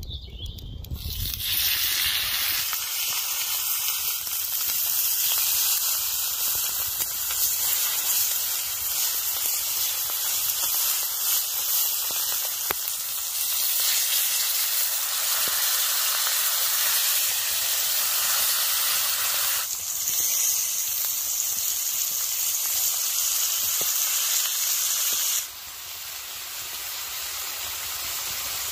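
Steaks sizzling on a hot, oiled cast-iron griddle, a loud steady hiss that starts about a second in as the meat goes down. Near the end it drops suddenly to a softer hiss.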